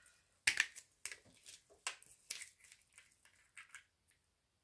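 A small dropper bottle of alcohol ink being shaken in gloved hands: a run of short, irregular clicks and taps, the first the loudest.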